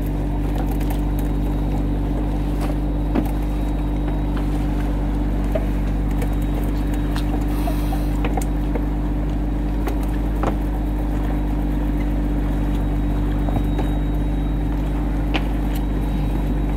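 A small fishing boat's motor running steadily at an even pitch, with a few faint knocks over it.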